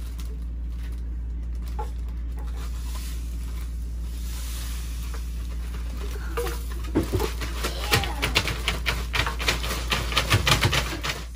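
Kosher salt hissing faintly as it is poured into zip-top plastic bags of ice cubes. From about seven seconds in it turns into a dense, loud crackle of plastic bags crinkling and ice cubes clicking as the bags are handled and zipped shut.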